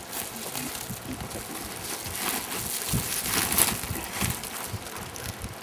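A woven plastic sack rustling and crinkling as it is held open and handled, with scattered clicks and knocks.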